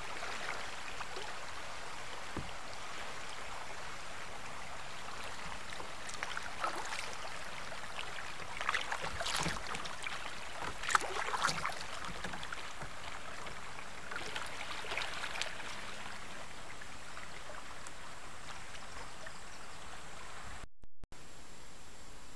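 River current rippling and splashing steadily around a sit-on-top kayak, with a few short splashes and drips from the paddle in the middle.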